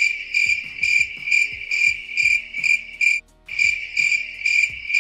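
Cricket chirping sound effect: a steady high trill pulsing about twice a second, breaking off briefly about three seconds in. It is the comic 'crickets' cue for an awkward silence after a silly answer.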